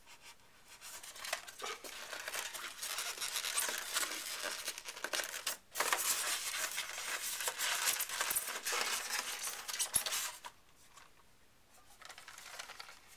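Rustling and scraping of packaging as a plastic model railway coach is worked out of its moulded foam tray, a continuous scratchy friction noise with a short break partway through that stops a few seconds before the end.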